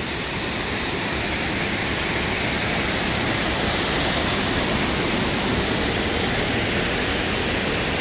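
Small creek waterfall pouring over a rock ledge into a pool, heard up close: a steady rushing noise of falling water.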